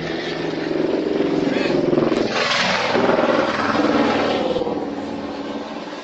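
A vehicle passing close by: its engine noise swells, is loudest in the middle and fades away near the end.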